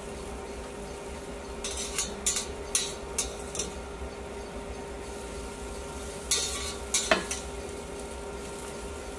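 Metal tongs clicking and scraping against a perforated grill pan and a cast-iron serving pan while grilled fennel and cucumber pieces are lifted across. The sharp clicks come in two short clusters, one about two to three and a half seconds in and another around six to seven seconds, over a steady low hum.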